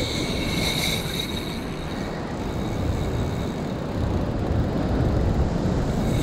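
Steady rumble of wind and surf crashing on rocks. A Shimano Stella spinning reel gives a thin high whine during the first second and a half while a hooked fish pulls against the bent rod.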